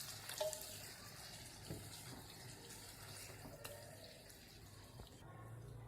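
Water being poured into a pan of moong dal, a faint wet pouring sound, with a few light clicks of a spoon against the pan.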